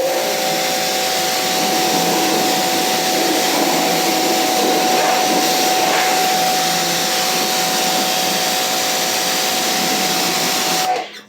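Pressure washer spraying: a loud, steady hiss of the water jet with a steady whine running under it, cutting off suddenly near the end.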